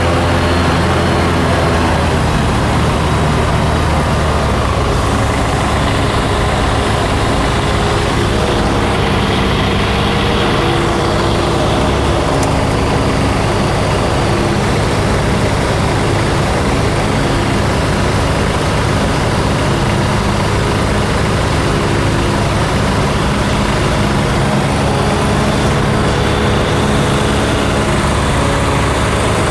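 Single-engine light aircraft's engine and propeller droning steadily in flight, heard from inside the cockpit over a constant rush of air, the pitch shifting slightly now and then.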